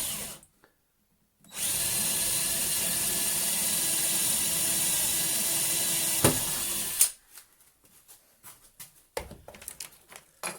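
Power drill boring the last mounting hole in a workbench: a short burst, a pause of about a second, then a steady run of about five and a half seconds that stops abruptly, followed by a few light clicks and knocks.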